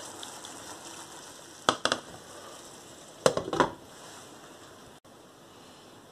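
A pan of chicory and egg simmering under a glass lid with a steady sizzle, and cookware clinking twice.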